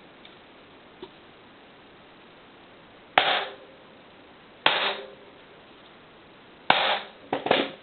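Four sharp hammer blows on a drift, driving a new sealed bearing into a Hope XC hub shell; each blow rings briefly, and the last two come about half a second apart.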